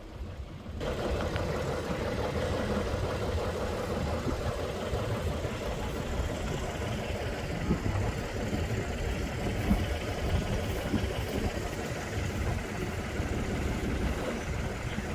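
Engine running steadily at idle, a low, even rumble that cuts in just under a second in.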